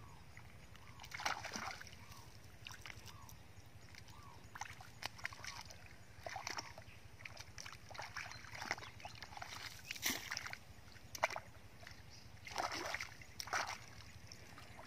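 Hands splashing and sloshing in shallow muddy water while groping through the mud, in short irregular bursts.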